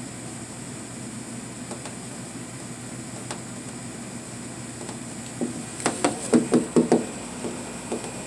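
A quick run of about seven sharp knocks, spread over a second and a half, starting a little past five seconds in, over a steady background hum.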